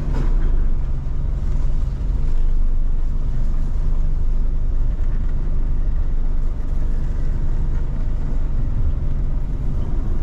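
Car engine running steadily, a low hum that holds its pitch.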